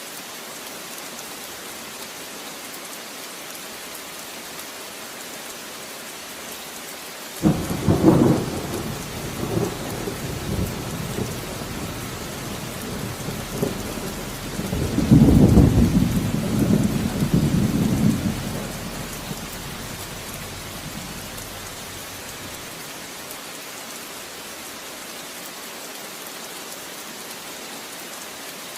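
Steady rain falling, with a thunderclap breaking in suddenly about a quarter of the way through and rolling into rumbling thunder that swells again, louder, near the middle before dying away, leaving the rain alone.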